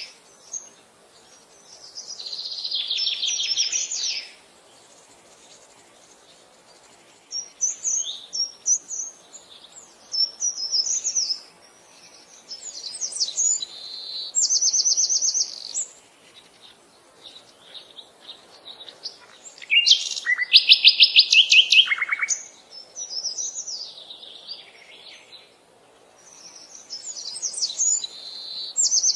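Songbirds singing in short, high-pitched phrases separated by pauses, including fast repeated trills; the loudest trill comes about two-thirds of the way through.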